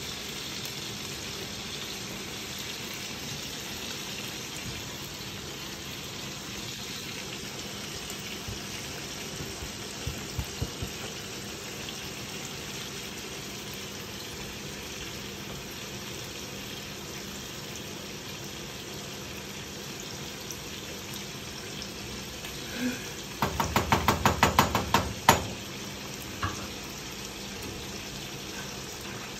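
Steady sizzle of chicken thighs frying in a skillet, with rice bubbling in a saucepan alongside. Near the end comes a quick run of sharp clacks, about two seconds long.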